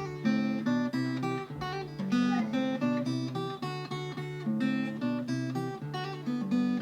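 Acoustic guitar playing a steady run of plucked chords over a moving bass line.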